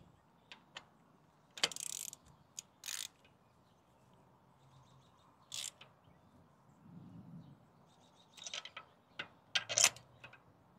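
Ratchet wrench with an extension clicking in short, scattered bursts as it is worked back and forth to tighten a new spark plug. The loudest clicks come near the end.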